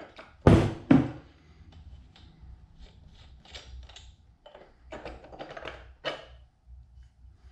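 Two sharp hammer strikes, about half a second apart near the start, knocking a 1979 Johnson 15 hp outboard's flywheel loose with a brass hammer. These are followed by light metallic clicks and rattles as the flywheel is worked free and lifted off.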